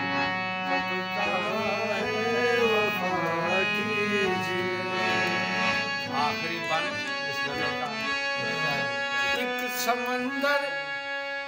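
Harmonium playing an instrumental passage of a ghazal, steady held reed tones with a melody on top. A wordless sung phrase wavers over it from about one to four seconds in, and briefly again around six seconds.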